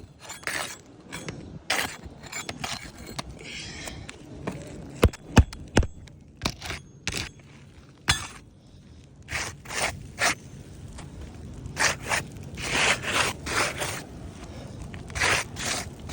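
Asphalt roof shingles being handled: repeated short scraping and rustling as tabs are lifted and rubbed, with three sharp knocks in quick succession about five seconds in.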